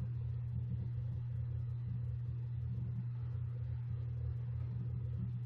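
A steady low hum with a faint hiss, unchanging throughout.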